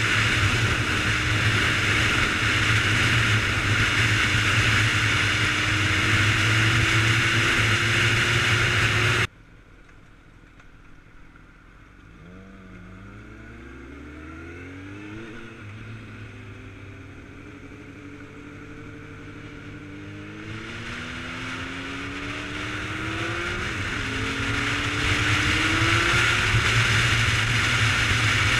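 Sport motorcycle ridden at speed: heavy wind noise with the engine's note rising slowly beneath it. About nine seconds in, the sound cuts suddenly to a much quieter engine that climbs in pitch again and again as the bike accelerates through the gears. The wind noise builds back up with speed.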